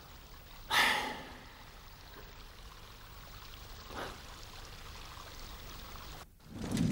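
A faint, steady trickle of flowing water, with a short, louder burst of noise about a second in and a softer one near four seconds. A louder noise starts just before the end.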